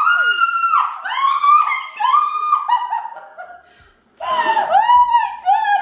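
High-pitched excited squealing and laughter, a run of short rising-and-falling cries that breaks off for under a second about two-thirds through, then starts again.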